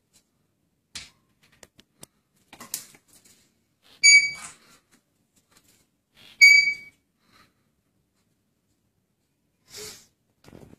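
Blue Indian ringneck parakeet giving two short, shrill, high-pitched calls, about four seconds in and again two seconds later, with faint soft taps and scratches in between.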